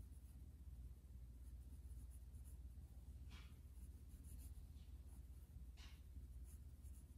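Charcoal pencil scratching on paper in quick scribbled strokes, faint, with two more distinct scrapes, one about halfway through and one near the end.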